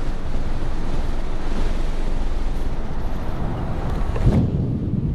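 Riding noise on a Honda Pop 110i motorcycle: a steady low rumble of wind on the microphone, with the small engine and surrounding traffic mixed in. About four seconds in, the hiss drops away and only the low rumble is left.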